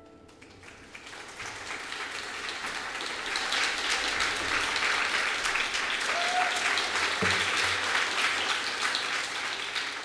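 Audience applauding, the clapping swelling over the first few seconds and then holding steady.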